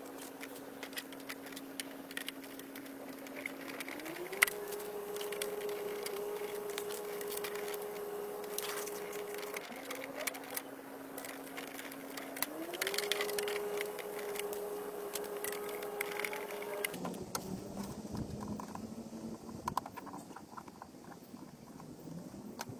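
A small motor running with a steady hum. It twice speeds up to a higher pitch and holds it for about four to five seconds, then drops to a lower, rougher sound near the end. Scattered clicks and knocks run throughout.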